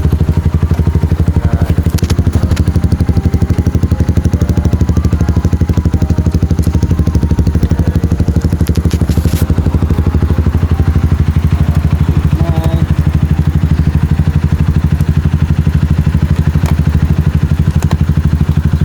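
Motorcycle engine idling steadily, with a few light clicks and clatters over it.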